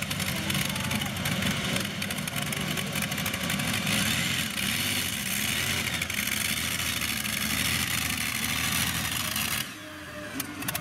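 Multi-engine modified-class pulling tractor's engines running loud. The sound drops off abruptly near the end.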